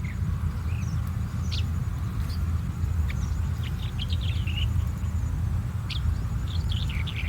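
Red-headed bunting singing: short jerky phrases of chirping notes about three seconds in and again near the end, with single sharp notes between. Under it runs a steady low rumble.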